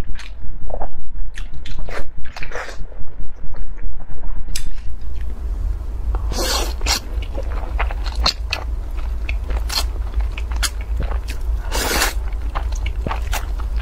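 Close-miked eating sounds: wet chewing and smacking of boiled egg, then, after about five seconds, long loud slurps of instant noodles over a low steady hum.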